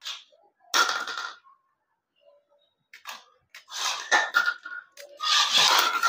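Small remote-control toy buggy's electric motor and gears whining as it is driven in short bursts: once about a second in, again around three to four seconds, and a longer run from about five seconds.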